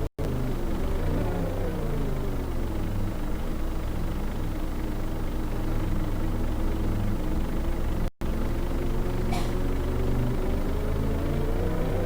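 Steady low rumble of a running vehicle, its pitch slowly dipping and rising. The sound drops out for an instant about eight seconds in.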